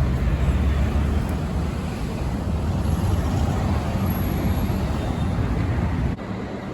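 City street traffic noise: a steady rumble of vehicles, which drops off abruptly near the end.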